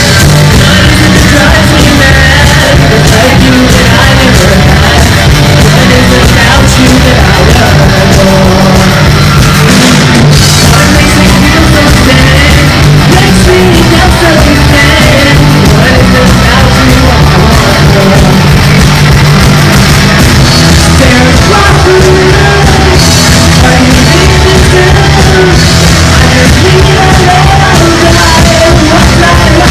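Live rock band playing loud: electric guitars, bass guitar and drums, with a lead singer on the vocal microphone.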